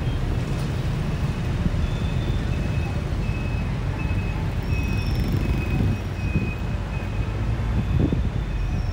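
Steady low rumble of an open-top double-decker bus moving through city traffic, heard from the upper deck. A string of short high chirps sounds over it in the middle.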